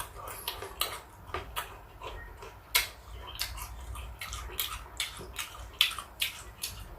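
Close-miked eating of fruit: a string of short crunching and mouth-smacking clicks, irregular, about two or three a second.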